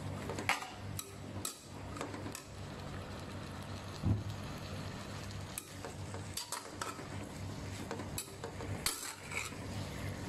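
A spatula scraping and clinking against a pan as spaghetti is stir-fried, in irregular strokes over a steady low hum, with one louder knock about four seconds in.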